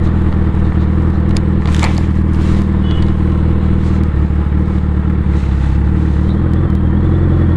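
Suzuki Hayabusa's inline-four running through a Racefit aftermarket exhaust at low, steady revs as the bike is ridden slowly through a turn. A few brief pops come about two seconds in.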